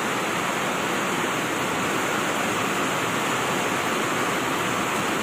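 Steady hiss of heavy rain, even and unbroken throughout.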